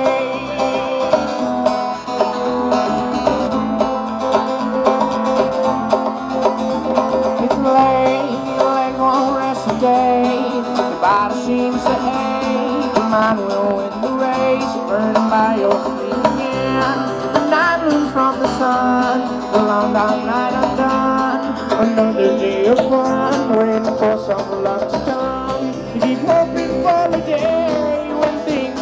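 Live band playing: steel-string acoustic guitar, electric bass and hand-played drums, with a drum kit, in a continuous passage.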